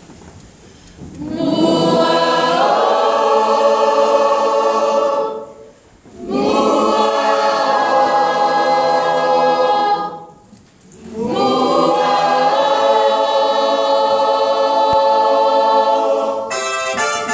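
Church youth choir singing a hymn in three long held phrases with short breaks between them. An electronic keyboard comes in near the end.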